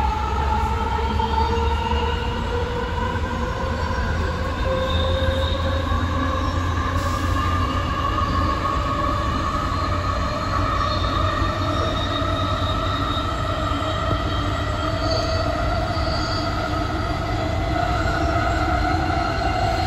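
AirTrain JFK people-mover car (Bombardier ART with linear induction motors) running on its elevated guideway, heard from inside the car. A steady low rumble of wheels on rail sits under several whining tones that slowly rise in pitch as the train gathers speed.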